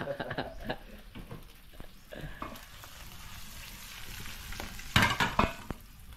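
Corned beef sizzling as it fries in a small pan, stirred and scraped with a spatula. There is a louder clatter of the spatula against the pan about five seconds in.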